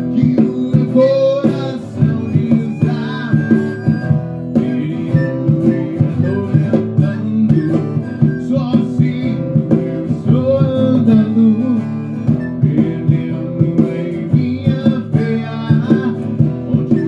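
Band music led by guitar, with a melody line gliding over steady chords.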